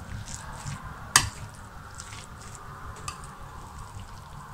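A spoon stirring a moist mix of fresh curd cheese, chopped greens and grated carrot in a ceramic bowl, with soft repeated squishing and scraping. About a second in, the spoon strikes the bowl in one sharp clink.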